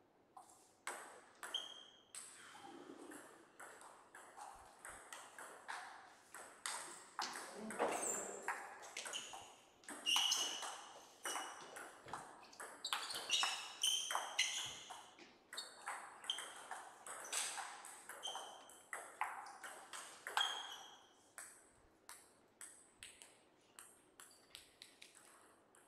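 Table tennis ball bouncing on a Donic table and struck by rubber-faced bats in fast back-and-forth rallies: quick sharp clicks, each with a short ping. Near the end the clicks come slower and more spaced out.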